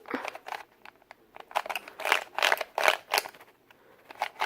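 Vintage plastic Rubik's cube being turned by hand: quick runs of scraping clicks as the layers rotate, in several separate bursts.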